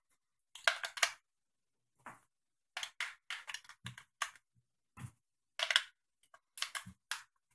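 Batteries being pressed into the plastic battery compartment of a TI-82 graphing calculator: an irregular string of clicks and light knocks as they seat against the spring contacts and rattle in the case.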